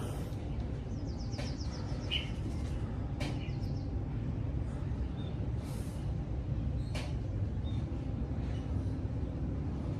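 Steady low outdoor background rumble, with a few faint short bird chirps and soft clicks over it.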